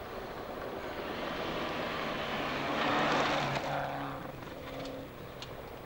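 Rally car on a gravel forest stage running hard as it approaches, loudest as it passes close about three seconds in, then pulling away, with a few sharp ticks near the end.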